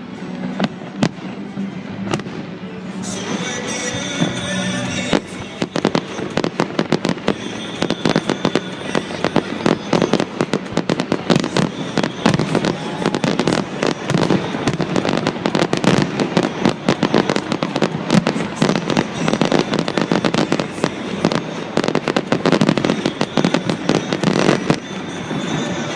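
Aerial fireworks display: a fast, dense barrage of bangs and crackles that thickens from about five seconds in and eases near the end, over background music.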